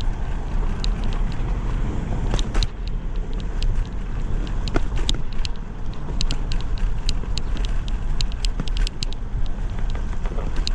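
Bicycle rolling along with a steady low road and wind rumble while its frame rattles in many sharp, irregular clicks over bumps; the rider puts the rattling down to vibration, likely from tyres pumped too hard.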